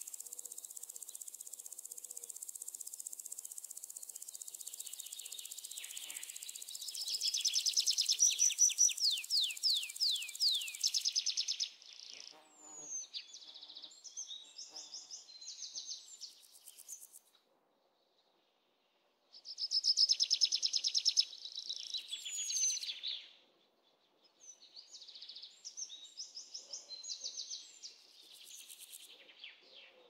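Songbirds singing over a steady high-pitched insect chorus. The insect drone stops about eleven seconds in, and the birds carry on in bursts of chirped phrases, with a brief silence near the middle. The loudest parts are fast runs of falling, whistled notes.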